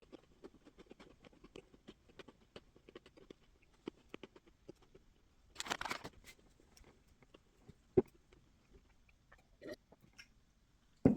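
Close-up chewing of a big mouthful of trail mix with nuts and pretzels: rapid small crunches through the first half, then slower. A brief noisy burst about six seconds in and a couple of sharp knocks later stand out over the chewing.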